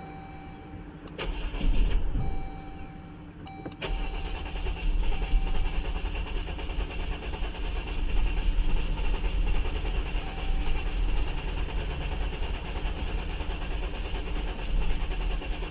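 A 2011 Jeep Grand Cherokee's 3.6-litre Pentastar V6 is cranked on the starter without catching: a short crank about a second in, then a long steady crank from about four seconds in. This is the crank-no-start condition, with ignition coil ionization and injector circuit faults logged, which the mechanic suspects comes from bad injectors.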